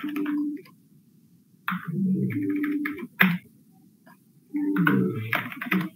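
A man's voice speaking in three short phrases with pauses between them, and a single sharp click about three seconds in.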